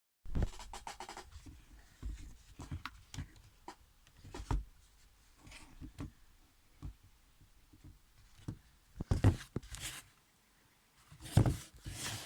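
Irregular clicks, knocks and rubbing, like objects being handled and set down, with a couple of longer scraping sounds near the end.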